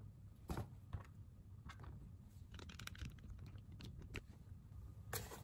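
Faint scattered taps and clicks of hands handling slices of toast on a plastic cutting board. Near the end a sleeve brushes against the camera's microphone.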